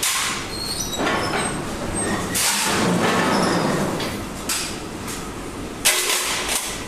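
Metal fabrication shop noise: steel plate scraping and clanking as it is handled at a press brake, over a steady machine rumble. There are brief high squeals in the first second and a half, and a sharp knock just before six seconds in.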